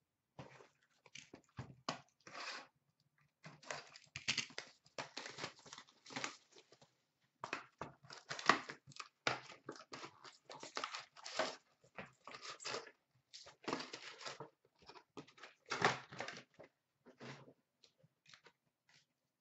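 Upper Deck SP Authentic hockey card pack wrappers being torn open and crinkled in a long run of irregular rustling bursts, with cards handled between them.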